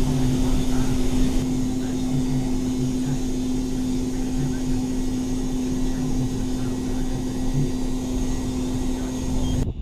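Self-propelled crop sprayer's engine running steadily, heard from inside the cab, with a steady hum over a low rumble. It cuts off abruptly near the end.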